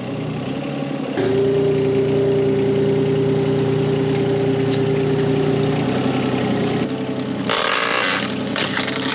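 Volvo EC20 mini excavator's diesel engine running. About a second in it loads up and grows louder with a steady whine as the hydraulics are worked, easing back about 7 seconds in. A brief hiss follows shortly after.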